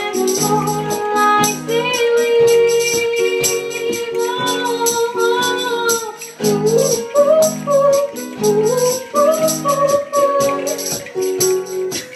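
Live acoustic band: an acoustic guitar strummed in a steady rhythm with hand percussion rattling along on the beat, and a woman singing a melody over it from about two seconds in.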